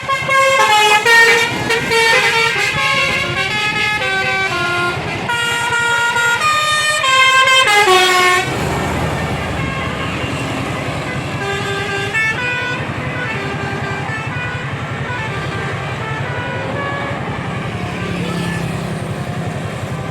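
Telolet basuri musical horn on a BS Guvili tour bus playing a quick tune of stepped notes, loud, for about the first eight seconds. A bus engine runs underneath, and the horn tune carries on more faintly for a while after that.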